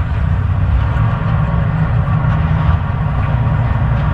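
Open jet boat under way at cruising speed: a steady low rumble of engine with rushing air and water, unchanging in level.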